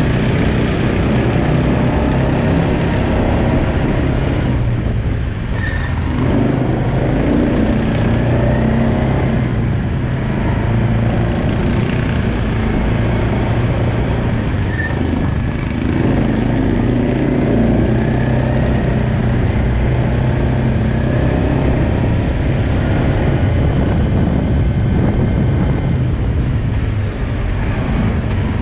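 Quad bike (ATV) engine running as it is ridden, easing off and picking up again a few times.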